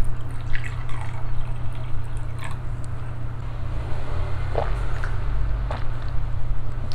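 Soju poured from a glass bottle into a small shot glass, then a few swallows as the shot is drunk, over a steady low hum.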